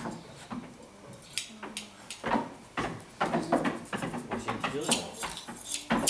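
Sheep hand shears clicking irregularly as the blades close on the fleece of a sheep held on its back, with low voices in between.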